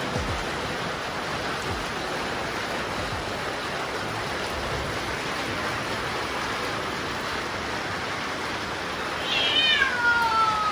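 A steady rushing noise, with a single animal call near the end that wavers and then slides down in pitch over about a second.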